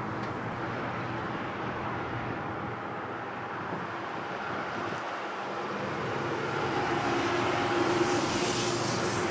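Boeing 737's jet engines running with a steady rush that grows louder from about six seconds in, as a steady whine comes through.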